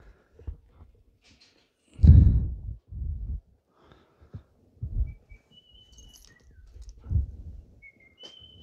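Several short, low rumbles on the phone's microphone, with a bird's short, high whistled notes about midway and again near the end.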